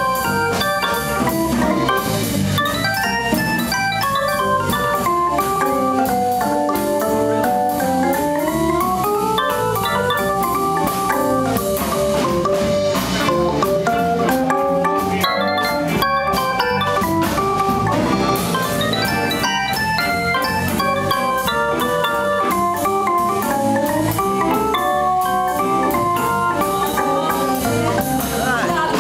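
Live band playing an instrumental jam on drum kit, electric guitars, saxophone and electric keyboard, with quick runs of notes rising and falling.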